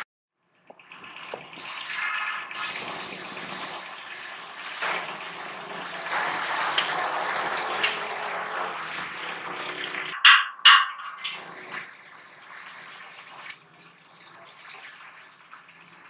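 Compressed-air paint spray gun hissing steadily while spraying paint. The hiss starts a moment in and runs for about ten seconds. Two short, sharp knocks follow, then quieter, uneven noise.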